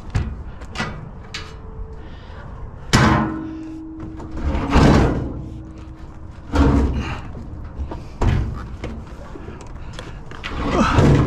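Heavy scrap items being moved and set down: a series of bangs and thuds a second or two apart, with a longer scraping noise about five seconds in.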